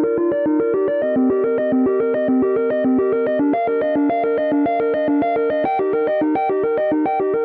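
Apple iPhone ringtone playing: a looping electronic melody of quick, evenly spaced notes, about seven a second.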